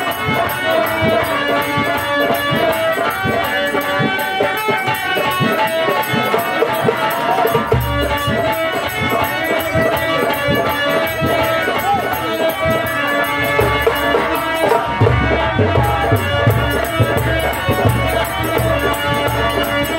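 Live Indian folk-theatre band music: a held melody over a fast jingling rattle, with a heavy hand-drum beat coming in about eight seconds in and again around fifteen seconds.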